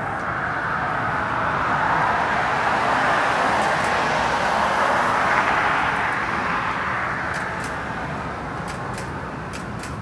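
A passing car's road noise: a rushing sound that swells over the first couple of seconds, holds, then slowly fades away.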